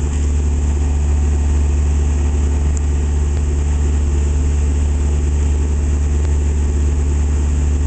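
Sailboat's auxiliary engine running steadily under way, a low, even drone.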